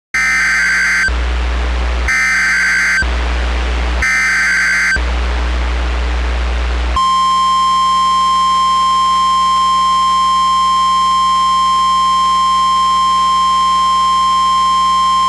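Emergency Alert System signal from a weather radio broadcast: three short bursts of screechy SAME header data, each about a second long and a second apart, then the steady, piercing weather radio warning alarm tone. The burst-and-tone sequence opens a new warning.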